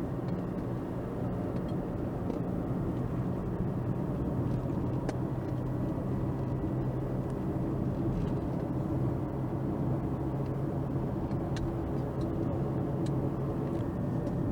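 A car being driven at a steady speed, with its engine hum and road noise heard from inside the cabin.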